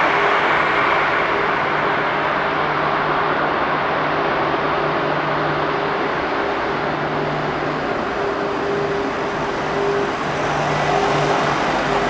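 Jet airliner's engines running, a steady broad rushing noise with a faint low hum under it, dipping slightly in the middle and swelling a little near the end.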